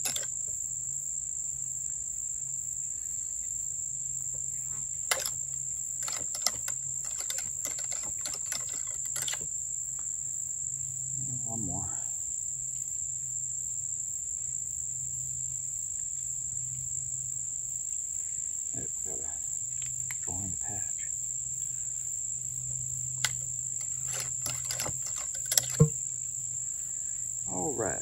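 Steady high-pitched trill of insects, with scattered sharp clicks and knocks of a cleaning rod being run with a patch down a muzzleloader rifle's barrel. A quick cluster of louder knocks comes near the end.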